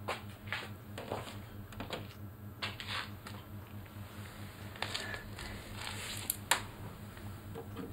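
Soft, irregular footsteps and clothing rustle on a concrete floor as someone walks up and crouches, over a low steady hum. A single sharp click comes about six and a half seconds in.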